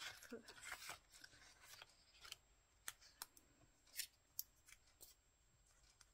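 Faint handling of paper on a cutting mat: light rustling and a scatter of small clicks and taps, busiest in the first second, as a paper strip is positioned and a plastic glue bottle is picked up.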